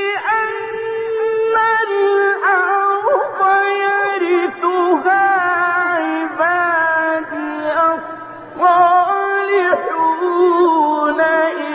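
A male reciter's voice in melodic mujawwad-style Quran recitation, holding long ornamented notes that bend and waver in pitch, with short breaks for breath.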